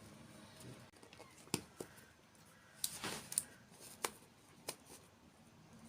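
Close-miked ASMR eating sounds: a handful of sharp, crisp crunches and clicks, bunched together around the middle.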